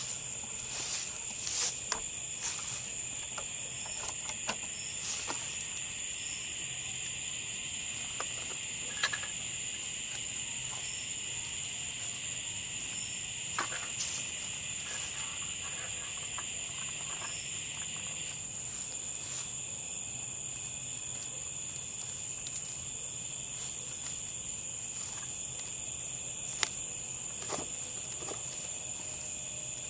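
Steady, high-pitched insect chorus, with a second, lower layer that cuts off a little past halfway. Scattered faint ticks and clicks sound over it, most of them in the first half.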